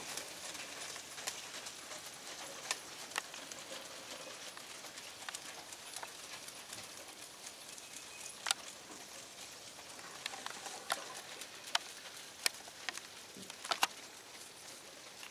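Driving ponies trotting in harness, pulling carts over arena footing at a slow trot: soft hoofbeats with scattered sharp clicks at irregular intervals.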